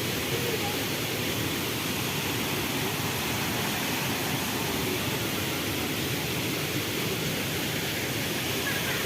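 Waterfall running in full flow, a steady, even rushing noise.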